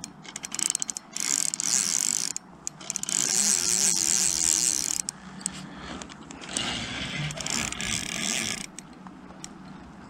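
Spinning reel being cranked against a hooked carp, in three spells of a couple of seconds each, the longest in the middle.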